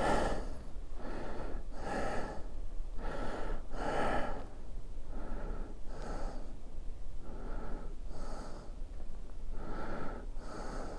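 A man breathing hard close to the microphone: a run of in-and-out breaths, about one a second.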